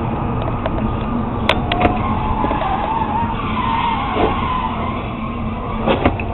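Steady highway road noise heard from inside a car. About two seconds in, tires squeal for around two seconds as a sedan skids. Near the end comes a sharp crash as the car hits the concrete median barrier.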